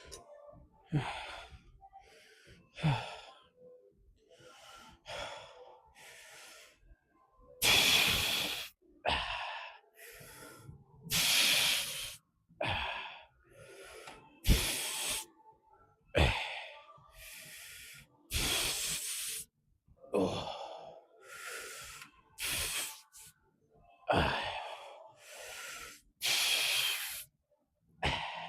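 A man breathing hard with loud, forceful exhales, roughly one every one to two seconds, as he works through a set of lifts.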